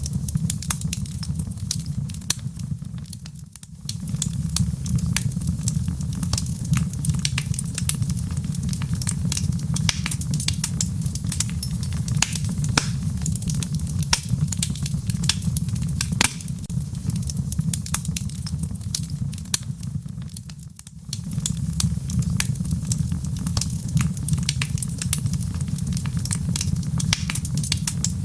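Wood fire in a fireplace crackling, with frequent sharp pops and snaps over a steady low rumble of the flames. The sound briefly drops away twice, once a few seconds in and again about three-quarters of the way through.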